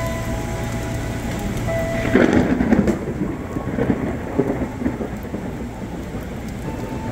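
Heavy rain falling steadily, with a rumble of thunder that swells about two seconds in and fades away by about five seconds.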